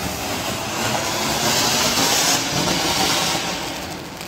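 A lit ground firework hissing steadily as it sprays sparks, swelling louder about a second and a half in and easing off near the end.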